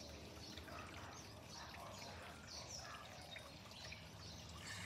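Faint trickle of water running over stones in a small hand-built garden creek, with short high chirps here and there.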